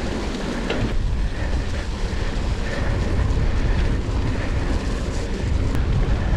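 Wind buffeting a mountain bike rider's action camera microphone over the steady rumble of the bike rolling along a dirt trail, with a few light clicks and rattles.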